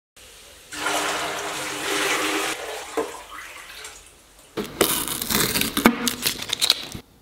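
Water poured from a plastic tub into a galvanized steel wheelbarrow: a loud rush of water, then a second burst of irregular splashing and slopping that stops suddenly.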